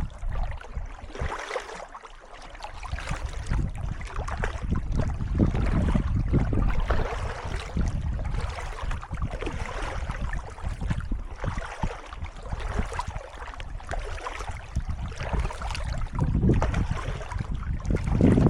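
Kayak paddle strokes splashing and dripping in calm water in a steady rhythm, with wind rumbling on the microphone.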